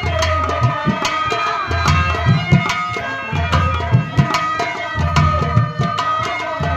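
Instrumental music of a nautanki stage show: a fast tabla and drum rhythm under a melody of held notes, with no singing.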